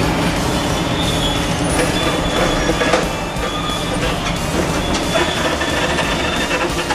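Hydraulic demolition excavator at work: diesel engine running under load while its crusher jaws grind and crunch a concrete floor slab, with repeated short high-pitched metal squeals.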